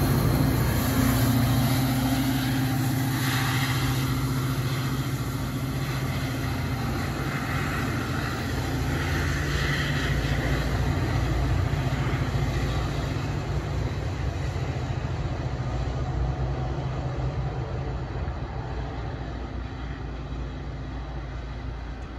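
NJ Transit GP40PH-2B diesel locomotive pushing a Comet V passenger set away from the platform. Its engine drone and wheel noise fade slowly and steadily as the train recedes.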